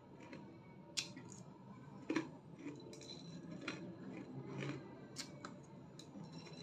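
Close chewing of crunchy Milo chocolate cereal balls, with about four sharp crisp cracks as they break between the teeth.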